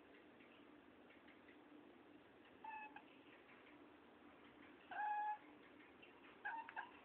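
Domestic cat giving short chirping meows, excited by a bird it is watching: three calls about two seconds apart, the middle one longest and loudest, the last broken in two.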